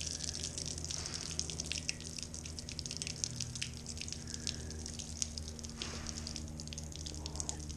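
Apple cider vinegar draining in thin streams from an engine block's coolant passages and splattering onto concrete, an irregular patter of drips and splashes, over a steady low hum. The vinegar was left in the block to loosen rust.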